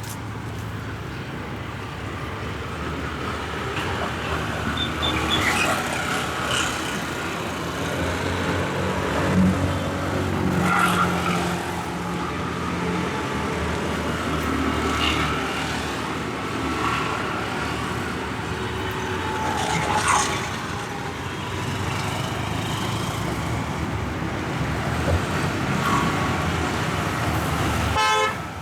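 Street traffic: vehicle engines running and passing steadily, with a few short sharp sounds over it.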